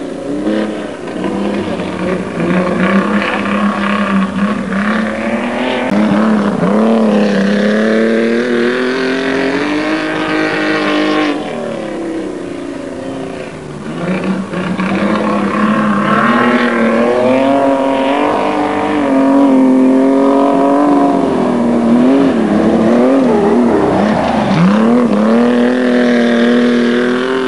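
Speedcar racing engines revving on a speedway oval, the pitch rising and falling again and again as the cars accelerate and lift off. The engines drop lower and quieter a little after eleven seconds in and pick up again about fourteen seconds in.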